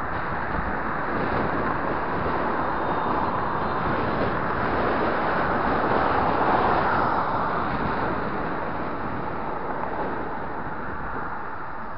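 Steady rush of wind over the microphone of a camera on a moving road bike, mixed with the noise of cars on the road. It swells about halfway through, when a car passes close alongside, then eases off.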